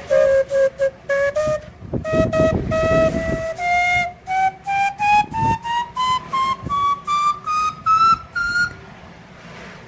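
Calliope whistles sounded one after another in testing, short notes climbing step by step up the scale from low to high, about two to three a second, with one longer held note partway up. The run stops near the end and leaves a faint hiss.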